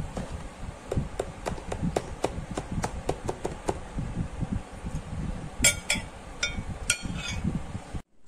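Light sharp taps repeating about three times a second, then a few louder, brighter clicks, over a low uneven rumble; the sound cuts off abruptly near the end.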